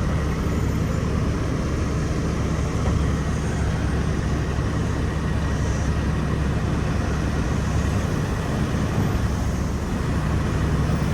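Steady rumble of road traffic, with no clear change or single event.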